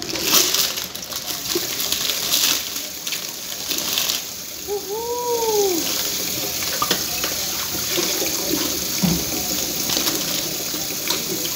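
Kitchen tap running into a stainless steel sink, a steady hiss of water that starts a few seconds in after some handling noises.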